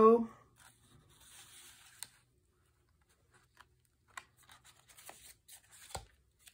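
Paper handling on a handmade junk journal: faint rustling as a card tag slides back into its pocket, then light ticks and rustles as the thick pages are turned, with a soft thump near the end.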